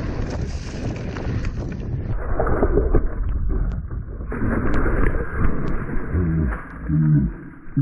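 Mountain bike riding on a dirt trail. For about two seconds wind rushes over the microphone, then the tyres rumble and the bike rattles over rough ground with scattered sharp clicks. A few short pitched sounds come near the end.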